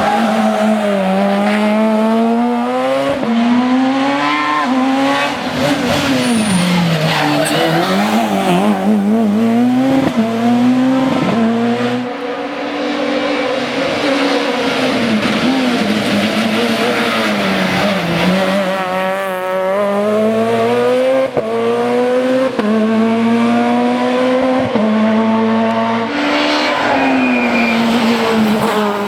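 Super 2000 rally car's naturally aspirated two-litre four-cylinder engine driven hard. It revs up repeatedly, with sharp drops in pitch at the gear changes and lifts for corners.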